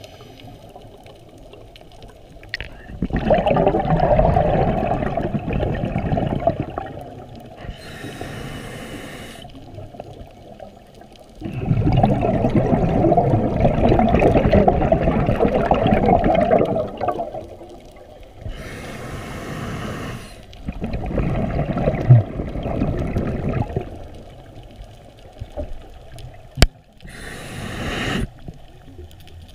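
Scuba breathing through a regulator, heard underwater: long, loud bubbling exhalations alternate with short hissing inhalations, about three slow breaths. A sharp click comes near the end.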